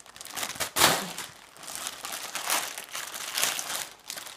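Clear plastic zip-lock bag crinkling and rustling as hands pull its seal open and handle it, in irregular bursts with the loudest crinkle about a second in.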